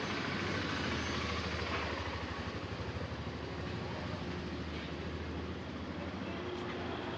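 Street traffic: a motor vehicle's engine running close by with a steady low hum, over continuous street noise.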